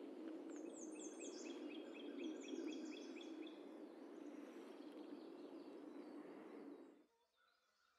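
A steady low rushing outdoor noise with a small songbird singing a quick run of repeated, falling high notes in the first few seconds. The rushing stops abruptly near the end, leaving only faint birdsong.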